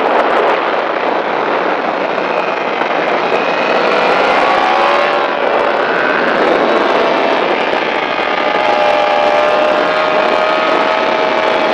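Sport motorcycle engine running at high revs in third gear, heard onboard under heavy wind rush. The engine note holds fairly steady, rising and dipping slightly with the throttle through a long fast bend.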